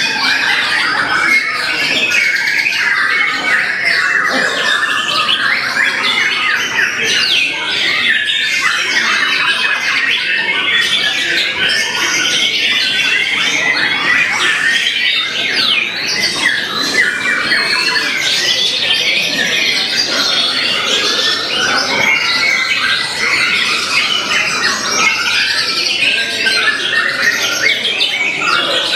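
Several caged white-rumped shamas singing at once: a dense, unbroken stream of varied whistles and chirps, full of mimicked phrases.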